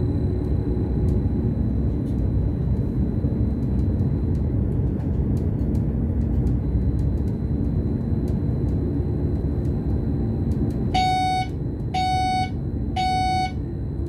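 BLS RABe 515 double-deck electric multiple unit running at speed, with a steady low rumble of wheels on rail heard from the driver's cab. About three-quarters of the way through, three short electronic beeps sound a second apart in the cab.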